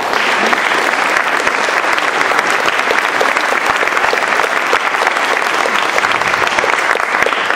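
A large audience applauding: dense, steady clapping that starts abruptly.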